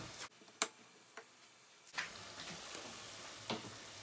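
A few sharp light clicks over a faint frying hiss from butter and onion cooking in a pot. The hiss cuts out almost completely from just after the start until about two seconds in.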